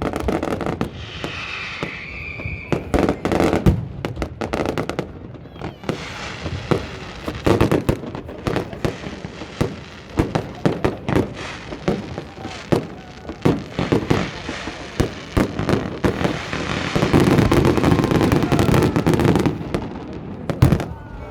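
Fireworks display: a long run of sharp bangs in quick, irregular succession, building to a dense, louder stretch of crackling and booming near the end.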